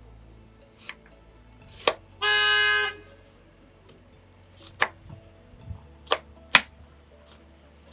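Kitchen knife slicing a white onion on a wooden chopping board: a handful of sharp knocks of the blade on the board, spread out unevenly. About two seconds in, a vehicle horn honks once, a steady tone of under a second and the loudest sound.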